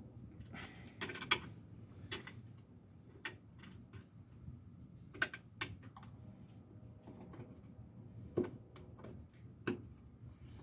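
Scattered light clicks and metallic taps at irregular intervals: hand work fitting a small metal mounting band around a brake fluid reservoir and driving its little Phillips screw. The loudest click comes about a second in.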